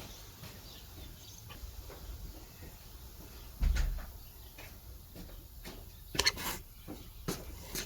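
Items being handled and set down: scattered knocks and clicks, a dull thump about three and a half seconds in, and a couple of sharp clacks about six seconds in.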